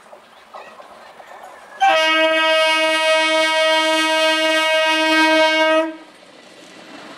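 Electric multiple unit local train's horn sounding one long, steady blast of about four seconds, starting about two seconds in and cutting off sharply. Near the end the train's running noise on the rails begins to build.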